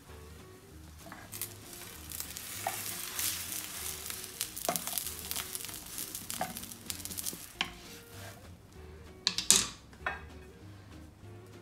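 Fluffy omelette sizzling in butter in a frying pan while wooden spatulas turn and fold it, with scattered knocks of wood against the pan. The sizzling fades about eight seconds in, and a short burst of louder knocks and scrapes follows as the omelette is lifted.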